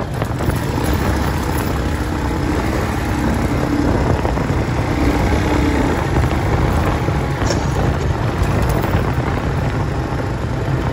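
A vehicle driving steadily along a gravel road: a continuous engine drone mixed with the rumble of tyres on the gravel.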